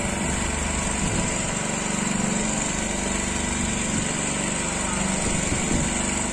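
A small engine on a fishing boat running steadily at an even speed, with a faint, steady high hiss over it.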